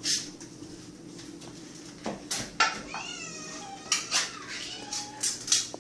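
House cats meowing over and over, several drawn-out rising-and-falling meows, begging for food at feeding time. Sharp knocks sound between the meows.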